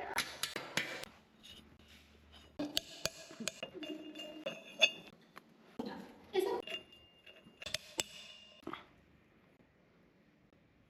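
Metal tools and parts clinking and knocking against each other while an elliptical trainer is being taken apart, in irregular clusters with brief metallic ringing.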